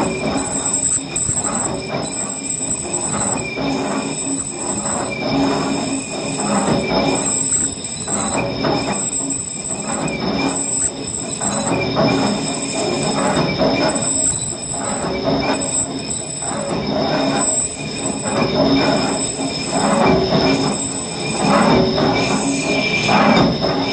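Lathe cutting tool skimming the uneven surface of a cable excavator's spinning steel hoist drum: a steady high metallic squeal that pulses about once a second, over the dense mechanical noise of the drum turning under power from the hoist engine.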